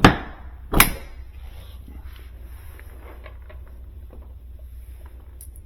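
Two sharp knocks about a second apart as metal hardware and tools are handled at a refrigerator door during hinge work, followed by faint small clicks over a low steady hum.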